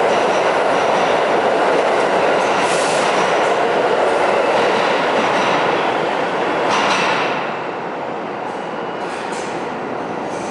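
Pullman-Standard R46 subway train departing an underground station: the steady rumble and clatter of its wheels on the rails as the last cars pass, dropping off about seven seconds in as the train runs away into the tunnel.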